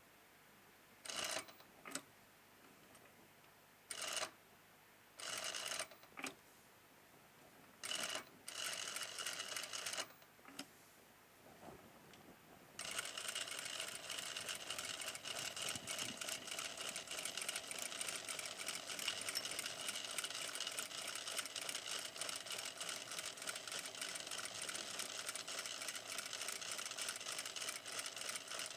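Sewing machine stitching through fabric in short stop-start runs of about a second each, then running without a break from a little before halfway, with a fast, even needle rhythm.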